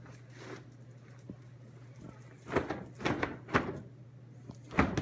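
A cotton pillowcase being shaken out, giving a handful of sharp fabric flaps and snaps in the second half, over a steady low hum.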